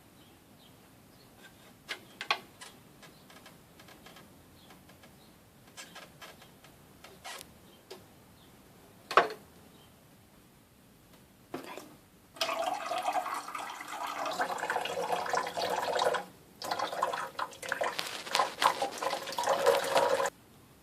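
A few scattered light clicks and taps, then about halfway through an old coffee machine's water runs with a loud gurgling, hissing rush for about eight seconds, broken briefly in the middle.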